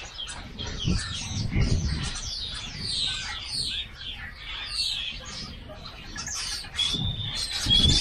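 A chorus of small birds chirping, many quick falling chirps overlapping one another, with one steadier whistled note near the end. A few low rumbles sit underneath, about two seconds in and again near the end.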